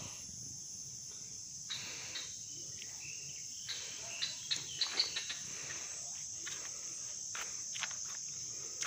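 Steady high-pitched insect chorus of crickets or cicadas in mountain forest, with scattered short clicks and rustles that are thickest about four to five seconds in.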